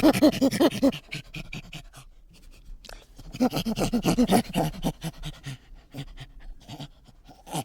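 Creature sound effect for an insect-like 'bicho': quick runs of short pitched, breathy calls, about eight a second, in two bouts, the first about a second long and the second about two seconds long starting about three seconds in, with scattered clicks between.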